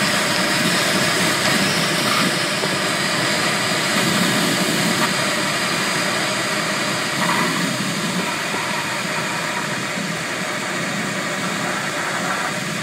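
Steady rush of airflow around a glider in flight, heard from inside the cockpit.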